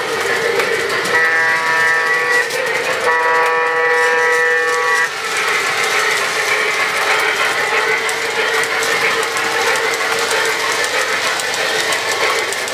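Sound board of a brass GS-4 model steam locomotive sounding three blasts of its warning signal, a chord of several steady tones, which ends about five seconds in. After that comes the running sound of the train and its passenger cars going by on the track.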